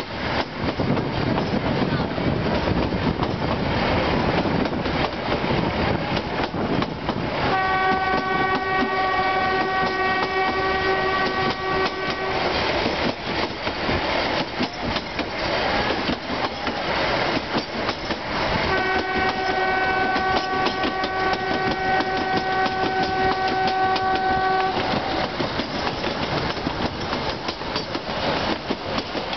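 Running noise of a passenger train rolling along the track, heard from an open coach doorway. The locomotive's horn sounds two long steady blasts of about five to six seconds each, the first about a quarter of the way in and the second a little past halfway.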